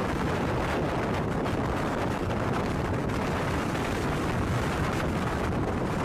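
Steady, loud roar of violent wind with a deep rumble underneath, unbroken and without distinct impacts.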